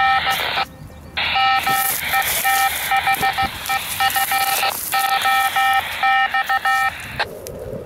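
Hidden foxhunt transmitter's steady beeping tone, heard loudly through a handheld ham radio receiver's speaker as a rapidly pulsing high tone. It breaks off briefly about a second in and again midway, and stops shortly before the end. The strong signal is taken by the hunter to mean the transmitter is right here.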